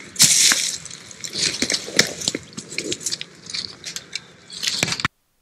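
Loud close-up rustling and crackling with many sharp clicks, uneven and in bursts, cutting off abruptly about five seconds in.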